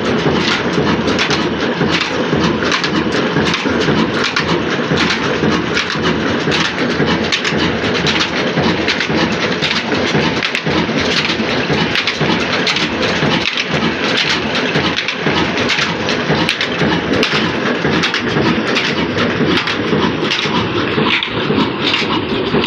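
Old stationary diesel engine running and driving belt-and-pulley line-shaft mill machinery: a steady, loud, dense mechanical clatter with many sharp knocks.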